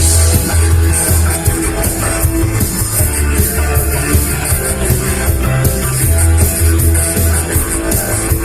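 Rock band playing live without vocals: electric guitar, bass and drum kit, loud and dense throughout.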